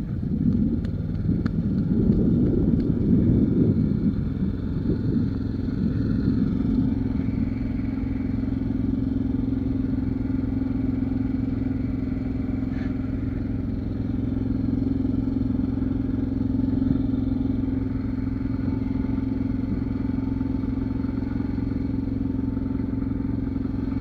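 Diesel engine of a Case backhoe loader running, rougher and a little louder for the first few seconds, then settling to a steady run.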